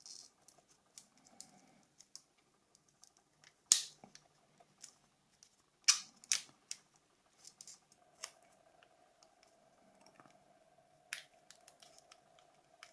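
Small hand-handling noises from working on a phone battery: scattered light clicks and taps, with a few sharper snaps about four seconds in, around six seconds and near eleven seconds. A faint steady hum comes in about eight seconds in.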